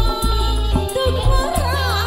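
A woman singing into a microphone with a live band: a gliding, wavering vocal line over heavy bass notes and regular sharp drum hits.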